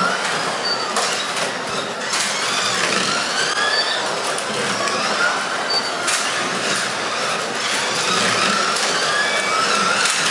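1/24-scale Carrera Digital slot cars racing: their small electric motors whine, rising and falling in pitch again and again as the cars accelerate and brake, over a steady running noise of the cars in the track slots.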